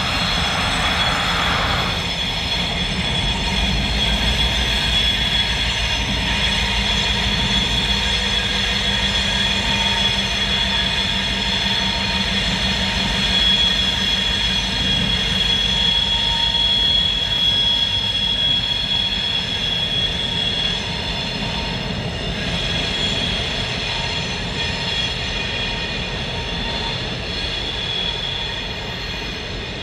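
Freight train passing over a wooden trestle behind two EMD GP38-2 diesel locomotives with two-stroke V16 engines: a steady low diesel rumble under the rolling cars, with a steady high-pitched wheel squeal. A car drives by beneath in the first two seconds.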